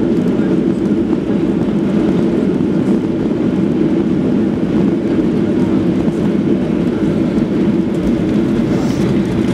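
Steady, even cabin rumble of a Boeing 737-800 rolling along the runway after touchdown, engine and wheel noise heard from inside the cabin.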